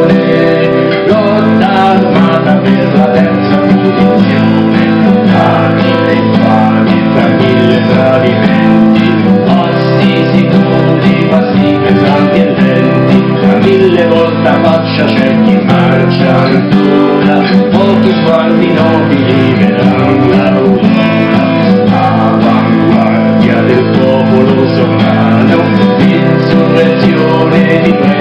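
Song with strummed acoustic guitar accompaniment and singing in Italian, playing continuously.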